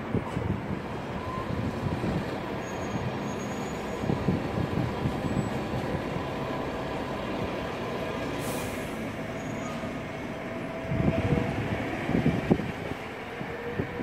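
Steady urban road traffic noise, with a short hiss about eight and a half seconds in and heavier low rumbling near the end.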